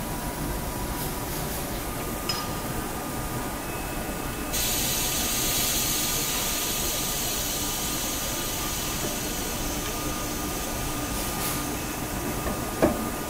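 Metal lathe running with a steady hum. About four and a half seconds in, a loud steady hiss suddenly joins it and carries on. There is a single sharp knock near the end.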